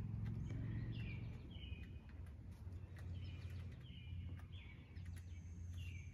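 Birds calling: short chirps, each sliding down in pitch, repeated about once or twice a second, over a steady low hum.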